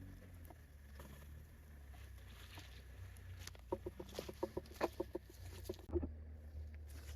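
A rapid series of short clucking calls, about a dozen in two and a half seconds, from a bird, over a steady low hum.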